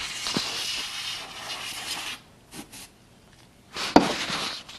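Aerosol contact cleaner sprayed through its extension straw onto organ key contacts: a steady hiss that stops about two seconds in. Near the end there is a knock and then a second short spray.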